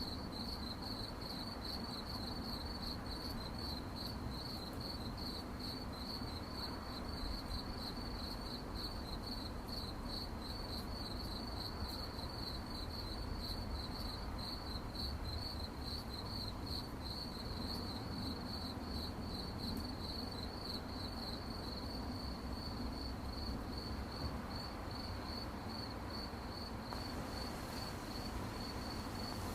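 Crickets chirping: a continuous high-pitched trill of rapid, even pulses that never breaks, over a faint low background hiss.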